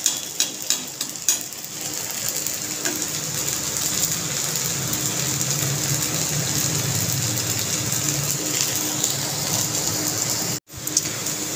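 Sabudana and potato patties deep-frying in hot ghee in a kadai, a steady sizzle and crackle, with a few sharp clicks of a metal slotted spoon against the pan in the first couple of seconds. The sound breaks off for a moment near the end.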